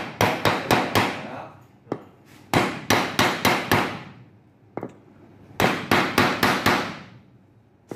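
Hammer blows on a wooden block, driving a new 6005 ball bearing into the hub of a plastic belt pulley. The blows come in three quick runs of about five strikes each, with short pauses between.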